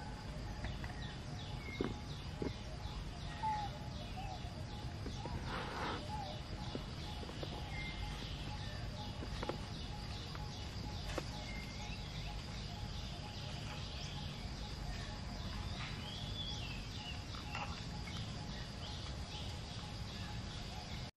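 Outdoor woodland ambience: scattered short bird chirps over a steady, high insect drone, with a brief rustle about six seconds in.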